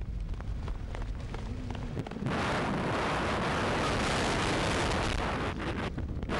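Rumble and rattle of a wheeled dryland sled-dog cart running fast on a forest road. About two seconds in, loud wind noise on the microphone sets in and holds until near the end.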